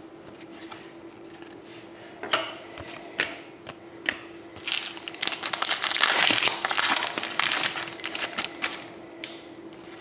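A few light clicks and taps of cards being handled, then about four seconds of dense crinkling from about halfway through, as a foil trading card pack wrapper is torn open.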